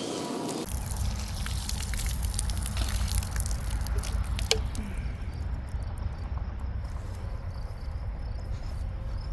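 Water spurting and splashing from a freshly opened outdoor spigot, crackling and sputtering over a steady rush. Crickets chirp steadily from about halfway in.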